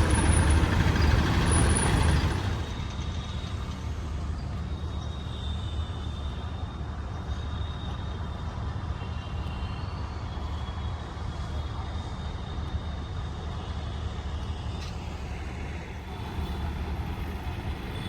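Heavy diesel machine engine running steadily, louder for the first two seconds or so and then settling to a lower, even hum.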